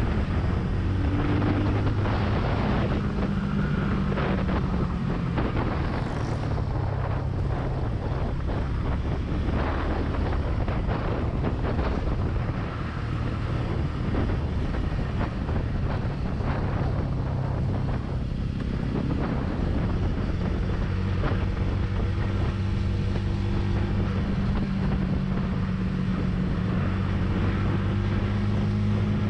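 Benelli TNT 25's single-cylinder engine running as the motorcycle rides along, its note steady near the start and the end and less distinct in the middle, with wind rushing over the microphone.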